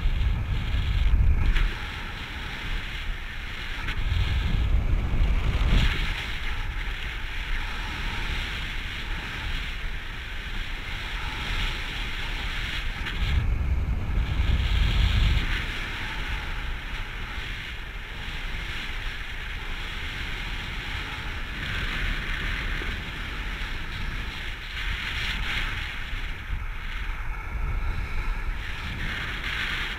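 Airflow rushing over the microphone of a camera carried in paragliding flight, a steady hiss with heavier low buffeting gusts three times: near the start, about five seconds in and about fourteen seconds in.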